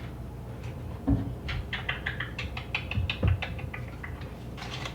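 Creamer bottles being rummaged through and shifted about: a few low knocks and a quick run of light clicking and rattling.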